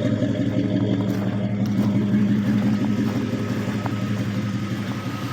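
Jeep's 4.7-litre Mopar V8 idling steadily with a low rumble through a Flowmaster exhaust, just after a cold start on a weak battery following a month of sitting in below-freezing weather.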